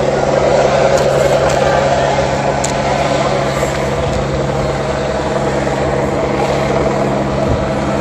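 Helicopter hovering overhead: a loud, steady rotor and engine drone with an unchanging pitch.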